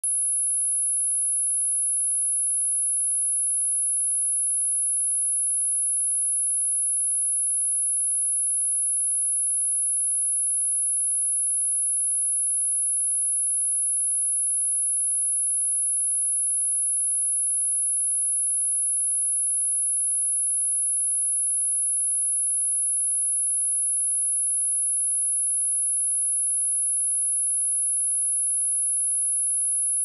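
A pure 10,582 Hz sine-wave test tone: one steady, very high-pitched whistle held at a constant level without a break.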